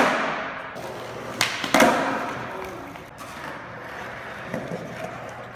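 Skateboard rolling on a smooth concrete floor, with a sharp clack of the board at the start and two more sharp clacks about a second and a half to two seconds in; the wheel noise fades toward the end.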